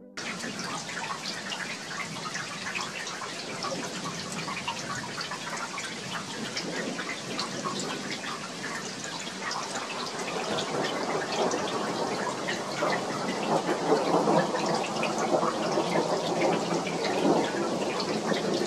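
Heavy rain falling, a dense patter of close drops that grows louder and heavier about halfway through.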